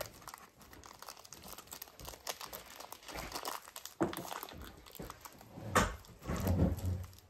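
Plastic ground beef chub wrapper crinkling and tearing as it is opened and squeezed by hand, with louder sharp crackles about four seconds in and again just before six seconds.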